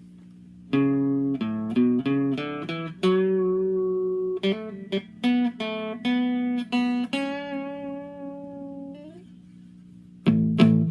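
Rickenbacker 360 electric guitar with flatwound strings, played on its neck (bass) pickup alone through a Vox amp: a run of picked chords and single notes that ring on, one note bent upward near nine seconds in, then fresh strums near the end.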